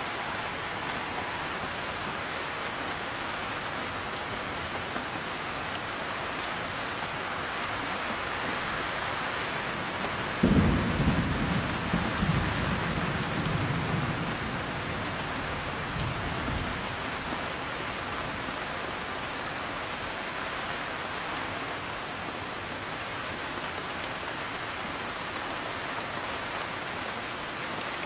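Heavy rain falling steadily. About ten seconds in, a sudden thunderclap rolls on as rumbling for some six seconds before fading back into the rain.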